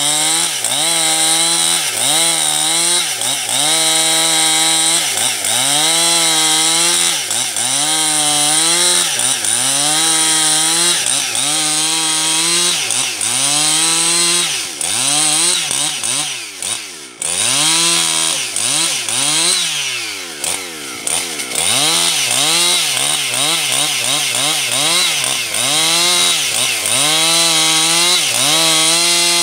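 Husqvarna 272XP two-stroke chainsaw running at high revs while ripping lengthwise through a log. Its engine note dips and recovers every second or so as the chain loads up in the cut, and twice around the middle it drops well down before revving back up.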